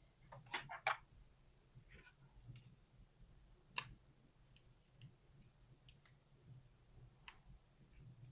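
Faint, scattered metal clicks and taps from a gutting tool and small lock parts being handled as a cylinder lock is taken apart. There are a few clicks in the first second, a sharper click about four seconds in, and light ticks after it.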